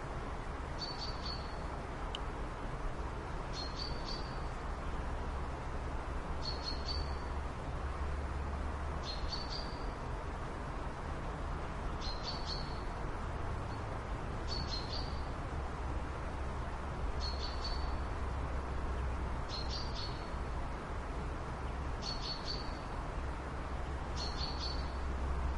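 A bird giving the same short high chirp over and over, about ten times at an even pace of roughly one every two and a half seconds, over a steady low hum and background hiss.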